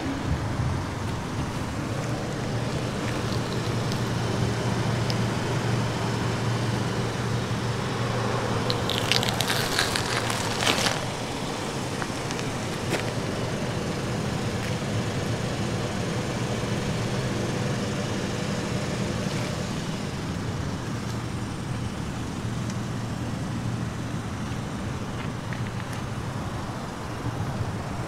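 Steady road traffic noise with a low, even hum. About nine seconds in there is a short cluster of sharp, high clicks lasting a couple of seconds.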